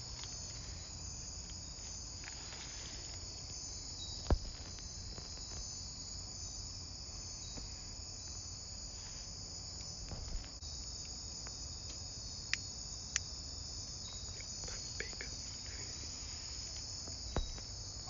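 Steady high-pitched chorus of night insects in the rainforest, with a few faint sharp clicks, the loudest about four seconds in.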